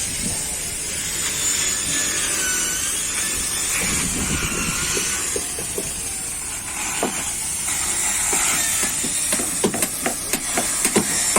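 Steady hiss of shipyard background noise; about two seconds before the end, rapid hammering starts, around four blows a second, from workers fitting new planks to a wooden fishing boat's hull.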